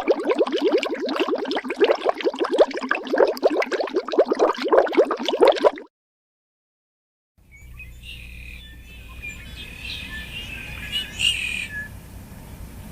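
A dense run of rapid bubbling pulses that cuts off about six seconds in. After a short silence, small birds chirp over a low, steady outdoor background.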